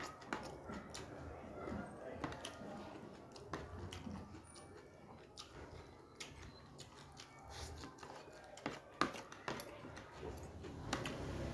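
Mouth-closed chewing of a mouthful of fried noodles and sausage, with metal fork and spoon clicking and scraping on a plastic tray as the leftovers are gathered up; the clicks come at irregular intervals, a few sharper ones late on.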